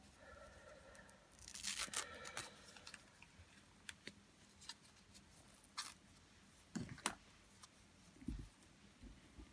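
Faint handling of a fashion doll and its fabric doll clothes on a cloth-covered table: a brief rustle about two seconds in, then scattered light clicks and a few soft taps.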